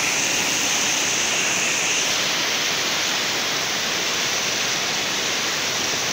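Fast-flowing floodwater rushing steadily past people wading through it.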